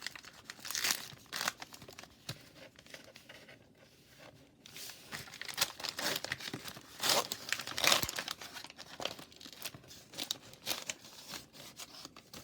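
A hockey card pack wrapper being torn open and crinkled by hand, in irregular crackling bursts, with the most handling about a second in and again a little past the middle.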